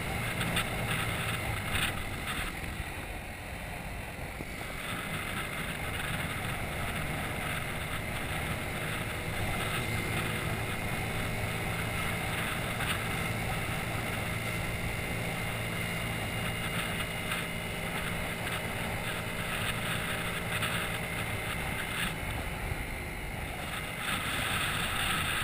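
Small scooter engine running steadily at cruising speed, with wind rushing over the microphone.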